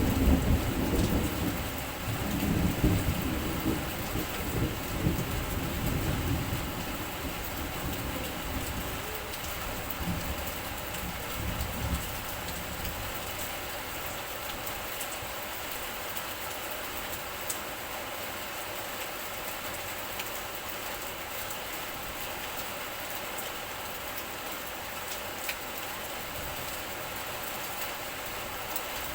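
Steady heavy rain, with a deep rumble of thunder over the first several seconds that dies away, leaving only the even hiss of the rain.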